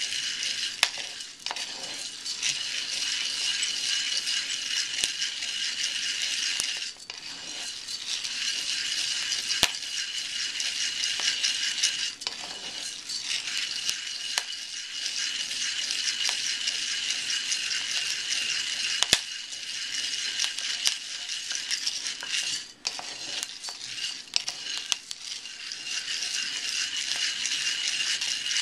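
Wooden spoon stirring dark-roasted coffee beans in a cast iron pan: a steady dry rattle and scrape of beans against the iron, broken by a few short pauses, with a few sharp clicks.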